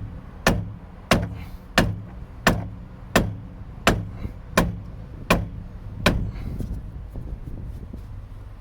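Hammer blows, about ten sharp strikes at a steady pace of roughly three every two seconds, stopping about six seconds in, tapping a front suspension part round into its aligned position.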